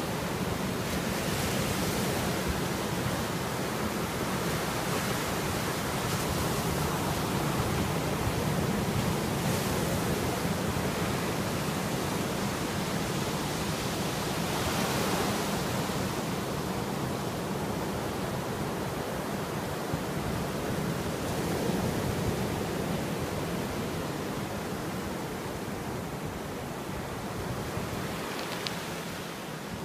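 Sea surf breaking and foaming up a sandy beach: a steady rush of water that swells each time a wave breaks.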